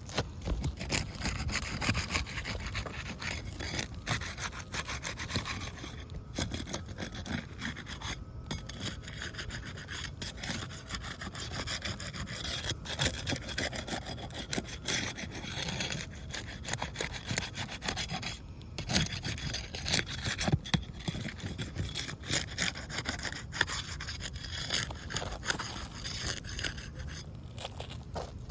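Scraping, rubbing and prying at old asphalt roof shingles, a busy run of gritty scrapes and small clicks as the tabs are worked loose.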